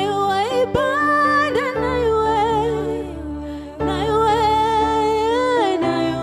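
Gospel worship music: a voice sings long held notes with vibrato, sliding between pitches, over steady sustained chords. The accompaniment changes chord about two seconds in and again near the end.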